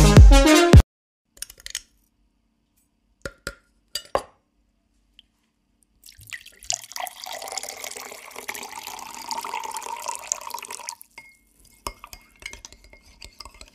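Background music cuts off under a second in, followed by a few scattered clicks and then about five seconds of splashing water that stops suddenly.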